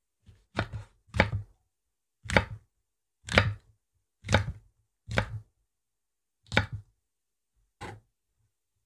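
Chef's knife slicing through a roll of fish cake wrapped around chili peppers and striking a wooden cutting board: about nine separate cuts, roughly one a second, the last one softer.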